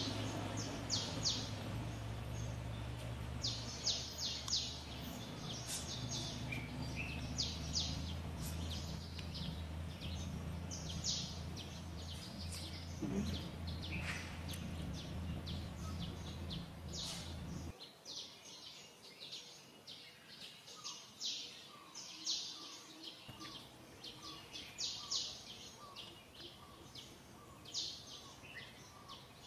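Birds chirping: many short, high chirps throughout, over a steady low rumble of background noise that cuts off abruptly about 18 seconds in. In the later part a fainter, lower note repeats about once a second.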